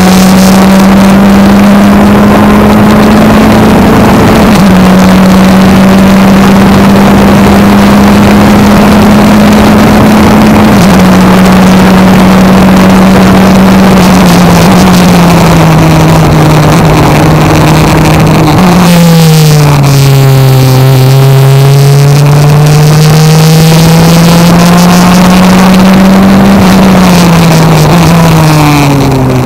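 Sports-racer race car's engine under racing load, heard loud from inside the open cockpit. The engine note holds high with a few small steps down in pitch, dips sharply about two-thirds of the way through, climbs steadily back up, then drops again near the end.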